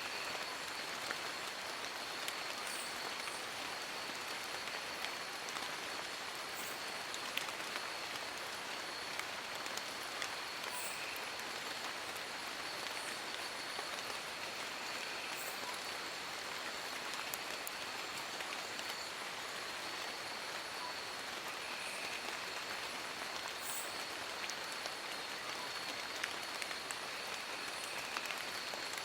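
Steady rain falling on forest leaves: an even, unbroken hiss with scattered sharper drips. A faint, steady high-pitched tone runs underneath.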